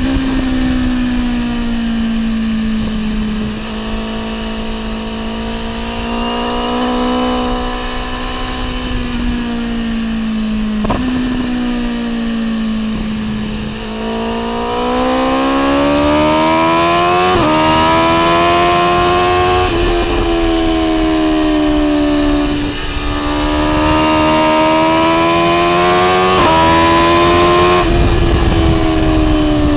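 BMW S1000R M's inline-four engine through an Akrapovic exhaust, on the move with revs swelling and easing and several quick gear changes. About halfway it is opened up and runs higher and louder.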